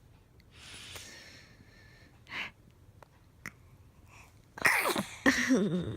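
Newborn baby sneezing twice in quick succession near the end, the second sneeze trailing off into a short wavering little voice sound.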